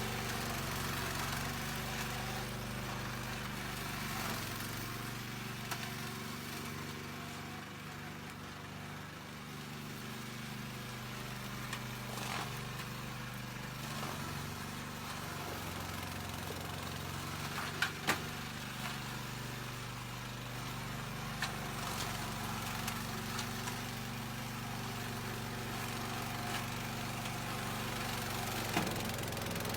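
Engine of a remote-controlled lawn mower running steadily, with two sharp clicks about eighteen seconds in.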